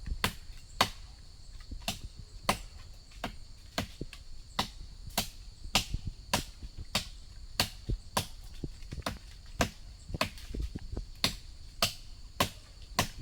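Repeated chopping strokes of a blade into wood, sharp and fairly regular at about one and a half a second, over the steady high buzz of insects.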